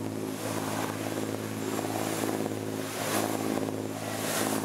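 Boat engine running steadily under way, a constant even hum, with rushing water from the wake and wind noise over it.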